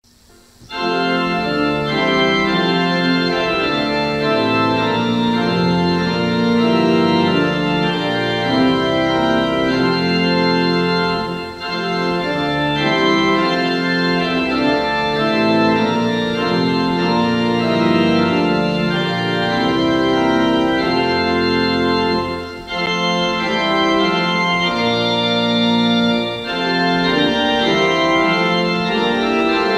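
Organ music: sustained chords that shift every second or so, beginning just under a second in, with a few short breaks between phrases.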